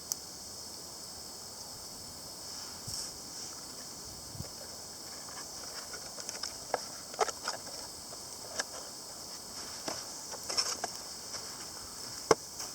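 Wood fire crackling, with sharp irregular pops that grow more frequent after about five seconds, over a steady high hiss.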